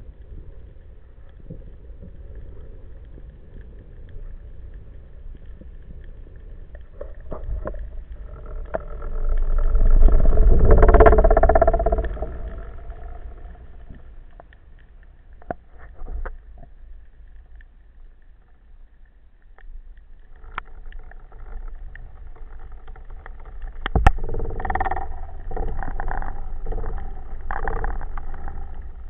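Underwater sound picked up through a camera housing on a speargun during a freedive descent: a steady low rumble of water, with a pitched hum that swells loud about ten seconds in and fades. The hum comes back in the last third along with scattered clicks and knocks.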